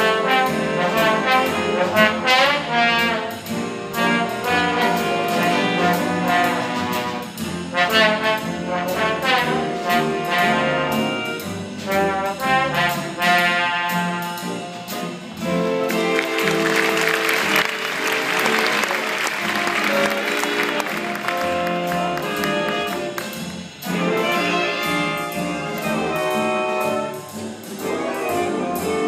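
A jazz big band playing live, with brass, saxophones, piano and drum kit over a steady beat.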